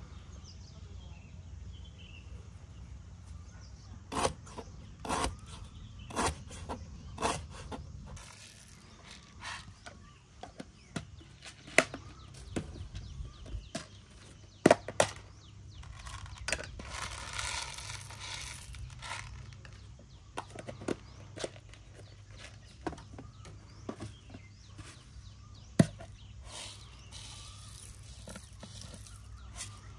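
Scattered sharp clicks and knocks of ingredients and utensils being handled at a stone mortar as garlic cloves and seeds are tipped in, with a few seconds of rustling near the middle.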